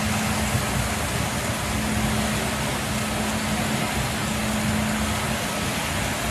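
Tennant walk-behind and rider floor scrubbers running: the steady drone of their vacuum and brush motors, a constant hum over an even hiss.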